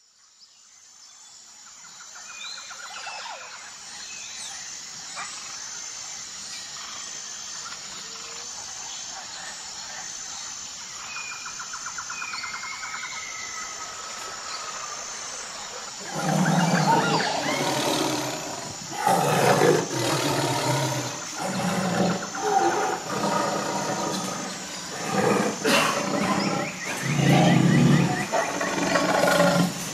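A large wild animal growling and roaring in repeated calls, each about a second long, starting about halfway through. Before that, a faint outdoor background fades in, with a few short high chirps and a steady high tone.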